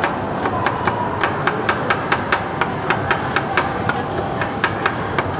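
Two metal spatula blades chopping cookie pieces on the frozen steel plate of a rolled-ice-cream machine: a quick run of sharp metal taps, about four a second, over steady background noise.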